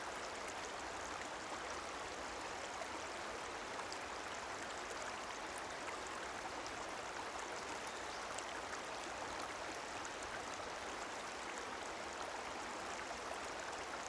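Stream water flowing and babbling steadily, an even rush with small scattered splashes and trickles.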